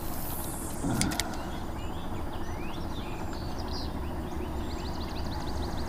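Outdoor swamp ambience: a steady low rumble with birds calling in short gliding notes. Two sharp clicks come about a second in, and a rapid, evenly paced trill sounds near the end.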